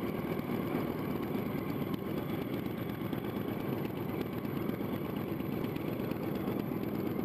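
Yamaha R1's inline-four engine running steadily at idle, with no revving.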